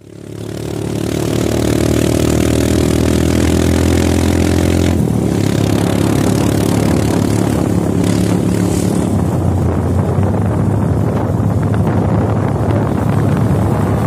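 Small motorcycle engine running while riding along a road, with wind noise on the microphone. The engine note shifts about five seconds in, and in the second half the wind noise grows and partly covers it.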